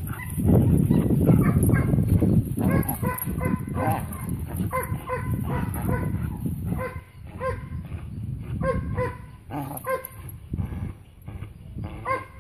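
A young dog tugging on a bite tug, giving short high-pitched whines or yelps again and again, about two a second, after a rough low rumble in the first two seconds.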